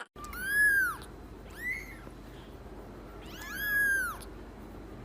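A domestic cat meowing three times, each call rising then falling in pitch; the second call is short, the first and third longer.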